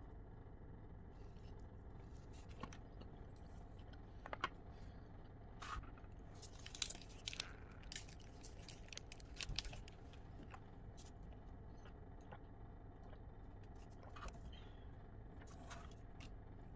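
Quiet handling noises: scattered sharp clicks and crinkles from a clear plastic food bowl and chopsticks, with some chewing, over a steady low hum.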